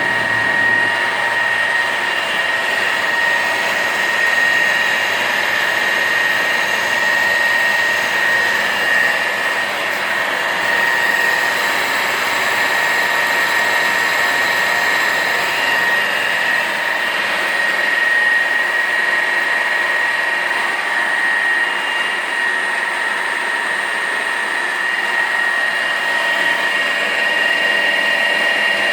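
Gildemeister NEF 360 CNC lathe running, a steady machine whir with a high, constant whine.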